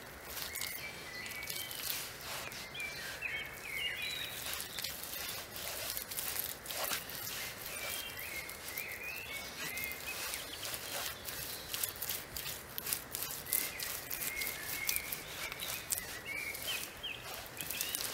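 Birds chirping in short bursts of song in the surrounding woods, over a steady outdoor background scattered with many faint short clicks.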